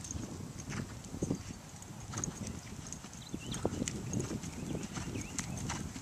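Hoofbeats of a black Holsteiner gelding trotting on dry dirt and grass: soft, irregular thuds.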